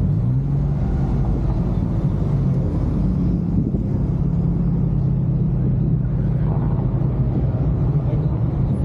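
A car's engine and exhaust droning steadily while it creeps along at low speed, heard from the car's roof, with a slight rise in pitch just after the start.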